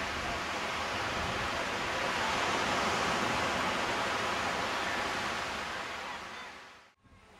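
Steady hiss of surf breaking on a sandy beach, fading away about six seconds in and dropping out near the end.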